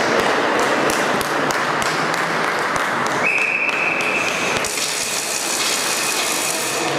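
Ice hockey rink game noise: sticks and puck clacking and skates on the ice over arena crowd hubbub, then a referee's whistle blows one steady note about three seconds in, lasting about a second and a half, followed by a high hiss.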